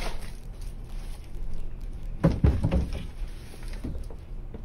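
A few dull thumps close together about two seconds in, over a low steady hum.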